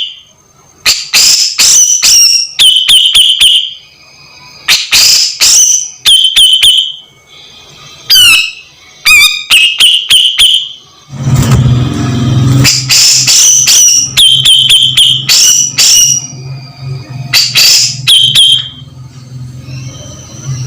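Cucak jenggot (grey-cheeked bulbul) calling over and over: phrases of sharp clicking notes, each ending in a short high whistled tone, about one phrase every second or two. About halfway in, a low steady hum starts under the calls and continues.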